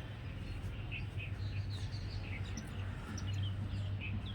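Jungle babblers calling: a flock's scattered short chirps and squeaky notes, many in quick succession, over a steady low hum.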